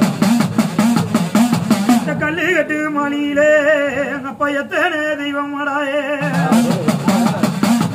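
Udukkai (Tamil hourglass drum) beaten in a quick, steady rhythm, each stroke bending up and down in pitch. A man sings a wavering devotional chant over it in the middle, and the drum carries on alone near the end.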